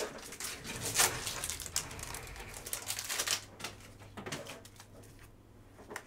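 Quick clicks and rustling from hands grabbing and handling plastic card sleeves, dense for the first three seconds or so, then thinning to a few faint ticks.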